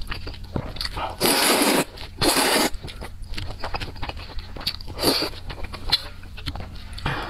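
Close-miked eating sounds: two loud slurps of noodle soup, one about a second in and another just after, then chewing with many small wet mouth clicks and a shorter slurp near five seconds.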